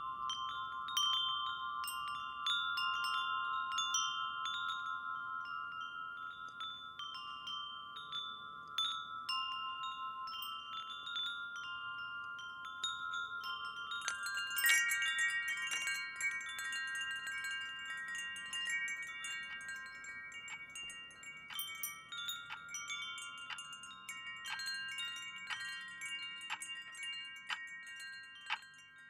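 Wind chimes ringing: several metal tones struck at irregular moments and left to ring over one another, with a brighter flurry of strikes about halfway through.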